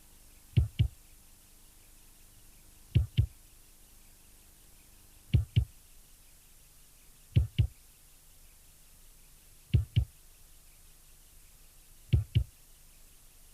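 Slow heartbeat sound effect: six low double thumps, each a pair of beats close together, repeating about every two and a half seconds.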